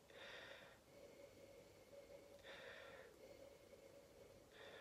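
Faint sniffing into a stemmed glass of beer: three short sniffs about two seconds apart, smelling the aroma of a sour ale.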